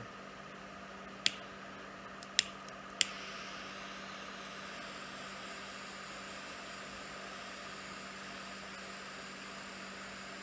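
A torch lighter clicked three times, catching on the third click, then its flame hissing steadily as it lights a cigar. A steady background hum runs underneath.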